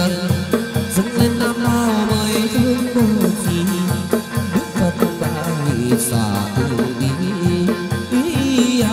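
Chầu văn ritual music: a melody over a steady, quick drum beat.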